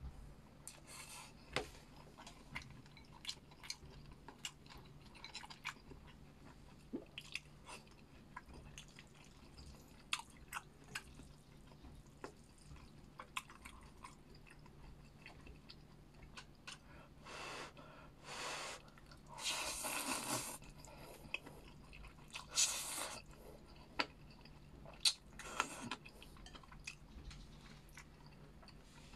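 A person chewing food close to the microphone, with many small wet clicks and crunches. Several longer, louder noisy bursts come about two-thirds of the way through.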